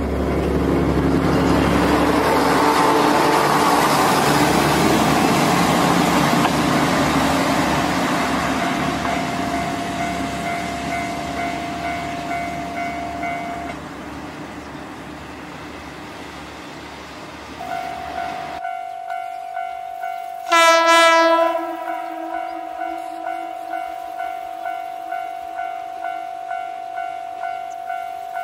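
KiHa 52 diesel railcar passing over a level crossing, its engine and wheels loud for the first ten seconds or so while the crossing bell rings; the bell stops about halfway through. Then a crossing bell dings about once a second and the railcar sounds one short horn blast about three-quarters of the way in.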